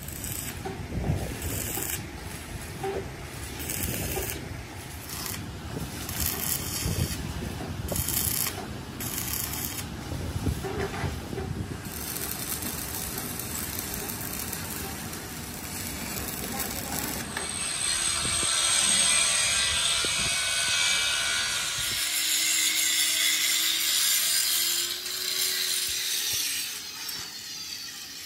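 Metalworking machinery in a fabrication shop: a low rumble with irregular knocks and clanks, then, about two-thirds of the way through, a louder high hissing grind with a wavering whine.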